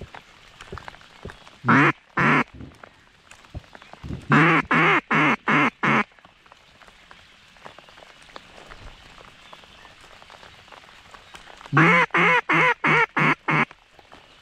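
Mallard-style quacks blown on a duck call, close by. There are two quacks, then two descending runs of about six quacks each, each run opening with a longer, louder note in the rhythm of a hen mallard's greeting call.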